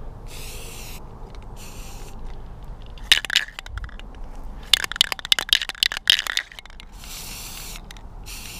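Rust-Oleum aerosol spray-paint can hissing in two short bursts, then its mixing ball rattling sharply as the can is shaken around the middle, then two more short hisses of spray.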